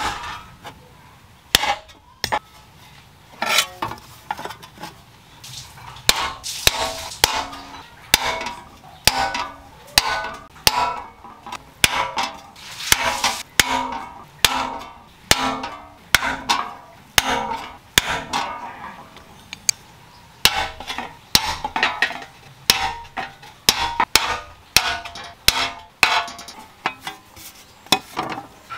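Hammer striking metal in a long series of blows, about one to two a second, each with a short ring.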